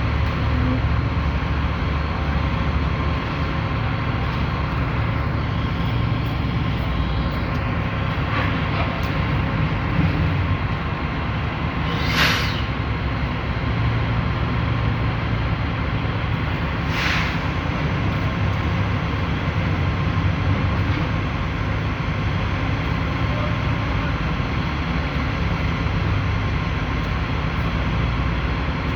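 Diesel engine of a truck-mounted concrete pump running steadily with a low rumble, with two short hisses about twelve and seventeen seconds in.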